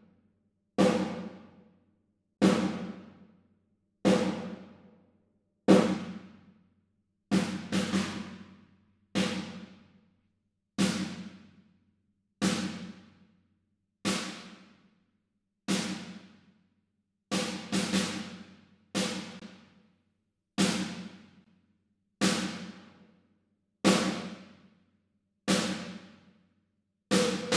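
Superior Drummer 3 virtual snare drum struck on its own about every 1.6 seconds, each hit ringing out over about a second. A few strikes come as two quick hits.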